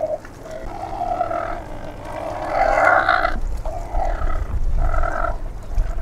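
Flightless cormorant (Galápagos cormorant) calling: a series of low calls about once a second. The longest and loudest comes about two and a half seconds in.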